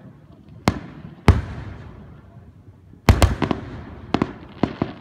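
Aerial fireworks shells bursting a few blocks away: two sharp bangs in the first second and a half, then a quick string of bangs and crackles from about three seconds in.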